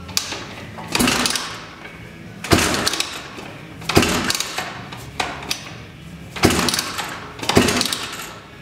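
Rotax-Honda ATC250R hybrid engine being kick-started again and again with the throttle cracked. It gives about seven sharp backfire bangs, one every second or so, and never catches. The owner takes this for ignition timing that is off.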